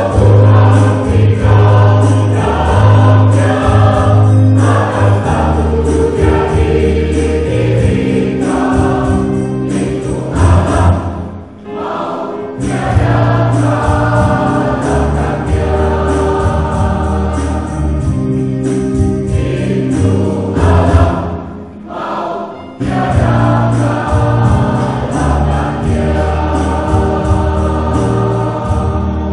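Mixed choir of men and women singing a hymn in parts, with brief breaks between phrases.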